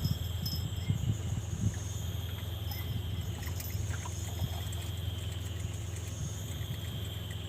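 Insects trilling steadily in several high bands over a constant low hum, with a few soft knocks.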